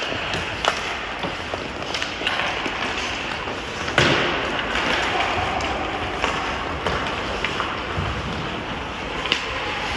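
Ice hockey play: skate blades scraping the ice in a steady hiss, with sharp clacks of sticks on the puck scattered through, the loudest about four seconds in.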